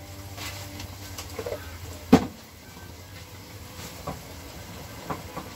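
Kitchen handling sounds at the stove: one sharp knock about two seconds in, then a few lighter clicks, over a low steady hum.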